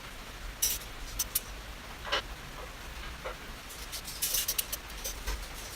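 Tie-down strap hardware clicking and clinking as a motorcycle is strapped to a wheel dolly, with scattered short clicks and rattles and a quick burst of them near the end.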